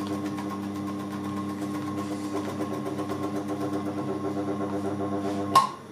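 TAIG micro milling machine running with the cutter taking a pass, its motor giving a steady hum with a regular pulsing knock that the operator can't account for. About five and a half seconds in a sharp click comes and the machine sound drops away.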